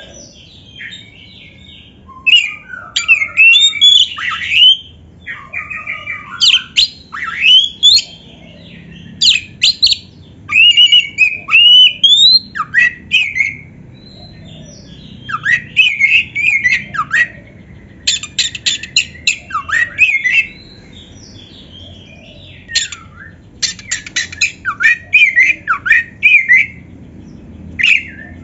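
Oriental magpie-robin (kacer) singing in bursts of loud, varied whistled phrases and harsh notes, with short pauses between them. Twice, in the middle and later on, it gives a fast rattling run of clipped notes.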